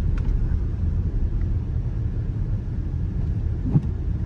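Steady low rumble of a 2018 Dodge Durango driving on snowy roads, heard from inside the cabin. A brief thump comes near the end.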